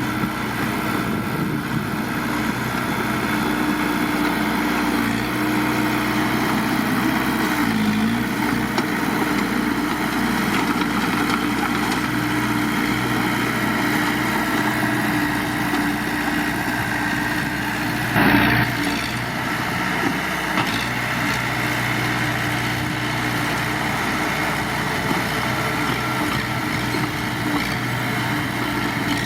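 Heavy diesel engine of earth-moving machinery running steadily at low revs, with its pitch dipping briefly about a quarter of the way through. A short, loud noise cuts in about two-thirds of the way through.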